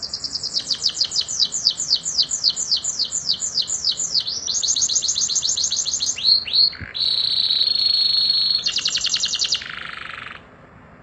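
Domestic canary singing one long song phrase: a run of quick repeated falling notes, about five a second, then a fast trill, a few downward sweeps, a held whistle and a second fast trill that stops near the end.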